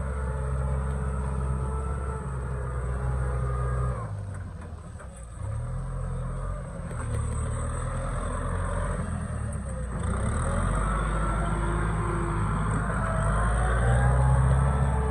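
Kubota M6040SU tractor's diesel engine running under load as it pulls a disc plough through heavy wet soil. The engine note drops away briefly about four seconds in, then comes back with a wavering pitch and grows louder in the second half as the tractor passes close by.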